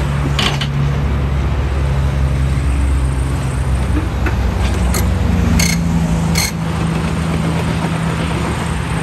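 Caterpillar 311D excavator's diesel engine running steadily, its note changing about five and a half seconds in and easing a second later, with a few short sharp clicks.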